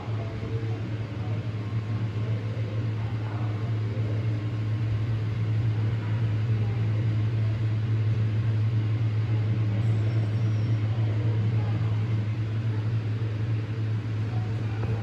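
Indoor hall ambience: a steady low hum with faint voices murmuring in the background.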